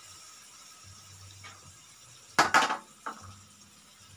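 Faint steady sizzle of fish frying in a wok, broken about two and a half seconds in by a brief loud clatter of cookware, with a lighter knock just after.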